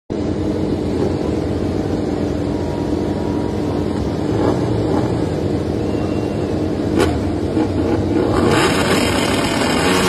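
MotoGP racing motorcycles' engines running on the start line during practice starts, blipped to higher revs now and then. A single sharp crack comes about seven seconds in, and the revs climb near the end.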